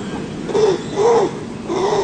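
An animal giving three short calls, each rising and then falling in pitch, about half a second apart.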